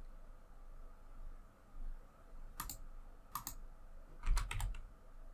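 Computer keyboard keys being pressed: a single keystroke, then another, then a quick run of four or five keystrokes near the end.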